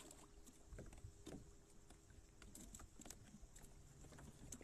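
Near silence, with faint scattered clicks and light knocks.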